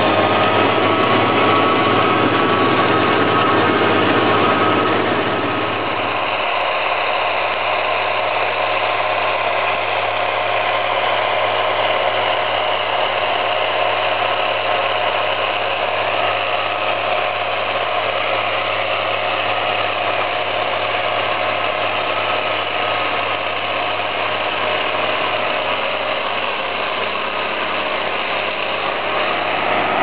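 John Deere 7810 tractor's six-cylinder turbo diesel running steadily under load while pulling a power harrow and seed drill through the soil, with a high turbo whistle over the engine note. About six seconds in the deep part of the sound drops away and it gets a little quieter.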